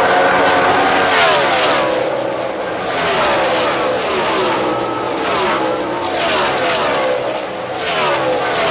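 NASCAR Sprint Cup stock cars' V8 engines passing at racing speed one after another, each engine note dropping in pitch as the car goes by, over a continuous drone from the rest of the field.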